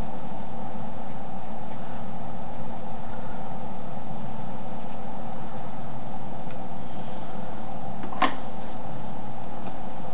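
Faint, short scratching strokes of a paint-pen tip dabbing and rubbing colour onto a rock, over a steady background hum, with one sharper tap about eight seconds in.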